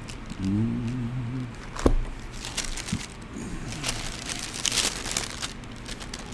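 Thin Bible pages being leafed through, rustling and crinkling for a few seconds, with a sharp tap about two seconds in.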